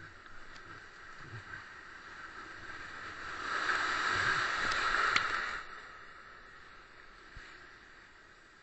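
White water rushing through a river sluice, growing louder as the kayak runs down the chute, loudest for about two seconds in the middle, then fading as it comes out below. Two sharp knocks near the loudest point.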